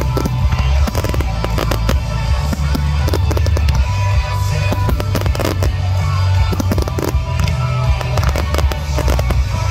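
Aerial firework shells bursting in a display: many sharp bangs in quick succession, over loud music with heavy bass.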